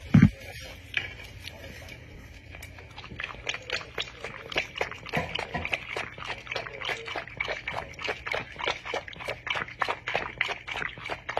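A dog lapping water from a bowl, a rhythm of wet laps about four a second. A short thump comes just at the start.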